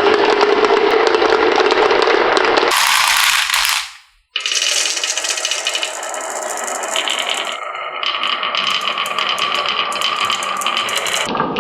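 Marbles rolling and clattering down a HABA wooden marble run: a dense rattle of rapid clicks. It cuts out abruptly about four seconds in, then the rolling rattle starts again with a steady ringing tone in it.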